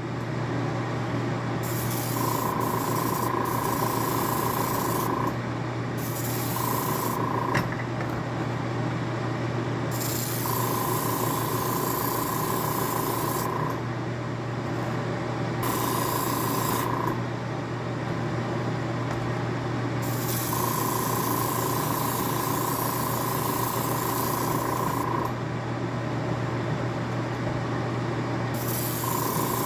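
Airbrush spraying water-thinned acrylic paint in bursts of one to five seconds, about six times. Each burst is a hiss of air carrying a steady whistling tone, the odd noise that sounds like spitting although the paint goes on smoothly. A steady low hum runs underneath.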